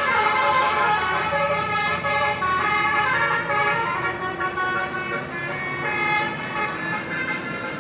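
Basuri musical horn playing a tune of stepped, held tones, one note after another.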